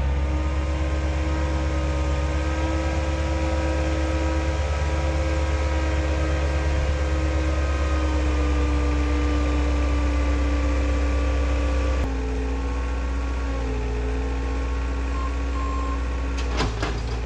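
Skid steer engine running steadily under load, its note changing abruptly about twelve seconds in. Near the end a reversing alarm beeps and there are a few short knocks.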